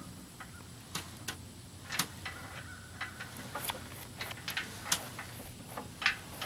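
Irregular sharp clicks and knocks, a metallic rattle of the aluminum jon boat and its trailer shifting as the rig is moved, with the loudest knock about six seconds in.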